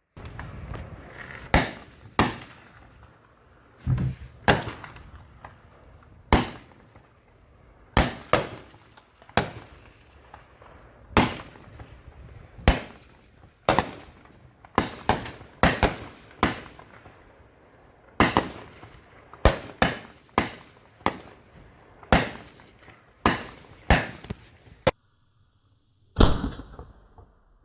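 M4 carbines firing single 5.56 mm shots one after another down a firing line in a 'rolling thunder' drill, about thirty shots at uneven spacing, some in quick pairs, each with a short echo. The shots stop a couple of seconds before the end, followed by a brief sound with a high ringing tone.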